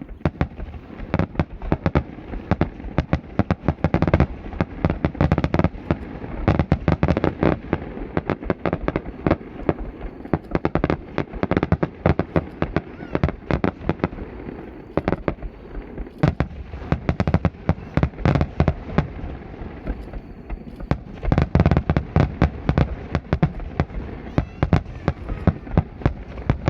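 Fireworks display in a continuous rapid barrage: many sharp bangs a second, layered over a deep rumble of shell bursts.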